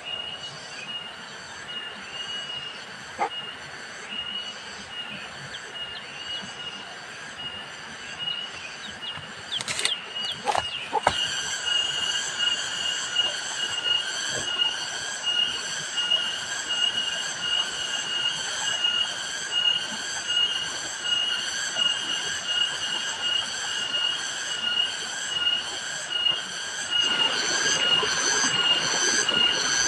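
A steady chorus of insects: shrill, high tones pulsing about twice a second. A few sharp clicks come about a third of the way in, after which the chorus grows louder.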